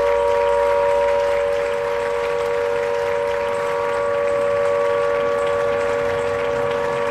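Harland & Wolff shipyard horn sounding one long, unbroken blast: a steady two-note chord that does not change in pitch.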